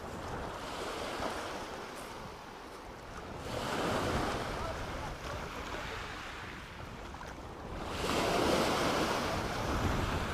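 Small sea waves breaking and washing up a pebbly shoreline, the surf swelling three times as each wave comes in.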